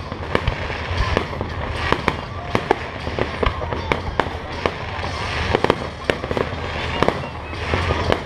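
Aerial fireworks display: shells bursting in a rapid, irregular string of sharp bangs and pops.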